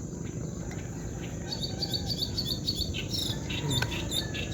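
Small birds chirping in quick, repeated high notes, starting about a second and a half in, over a steady low background rumble, with one sharp click near the end.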